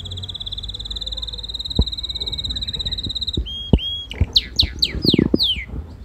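Red canary singing: a long rapid trill held at one high pitch for about three and a half seconds, then a run of quick falling notes. A few dull knocks sound alongside.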